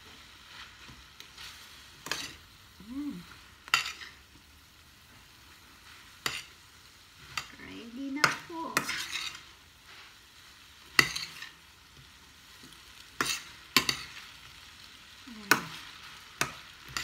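Metal spoon clanking and scraping against a stainless steel frying pan while glass noodles with green beans and shrimp are tossed: about ten sharp, irregular knocks over a faint steady sizzle of the frying.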